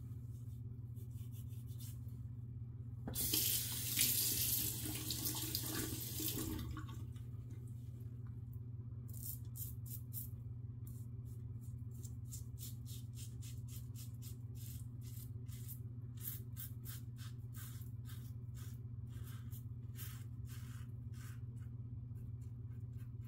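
Tap water running into the bathroom sink for a few seconds, then an adjustable double-edge safety razor scraping through lathered stubble in many short strokes. A steady low hum runs underneath.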